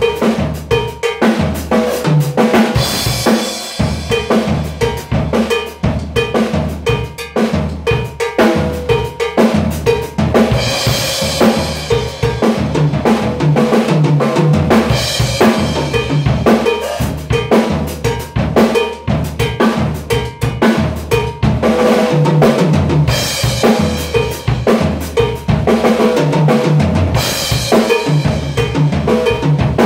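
Acoustic drum kit played in a continuous Afro groove in 6/4, bass drum and snare driving a busy pattern with a cymbal crash every few seconds.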